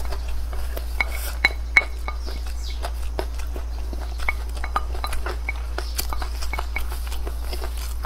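Wooden spoon scraping and tapping against a ceramic plate as fried rice is scooped up, in many irregular clicks mixed with eating sounds, over a steady low hum.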